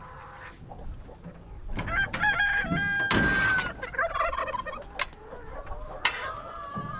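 Chickens clucking, with a rooster crowing once about three seconds in in a long call that falls slightly at the end.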